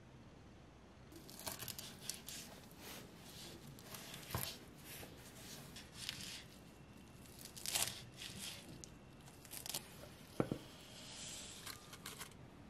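Kitchen knife chopping fresh parsley on a wooden cutting board: a run of irregular crisp, crunchy cuts through the leaves and stems, with a sharper knock about ten seconds in.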